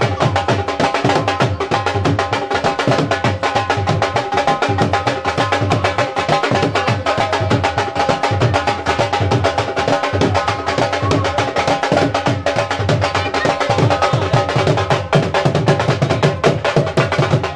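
Fast, steady drumming with music, the beats running on without a break.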